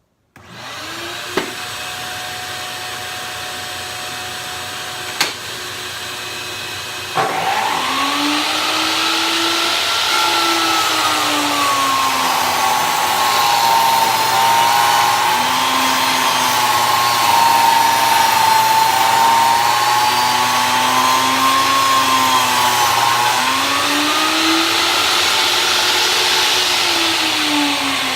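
A shop vacuum on the saw's dust port starts and runs steadily. About seven seconds in, a Skilsaw worm drive table saw starts and spins up. Its motor pitch sags and wavers while a board is ripped, fed hard, then rises again as the cut ends and begins to fall near the end; the saw does not bog down.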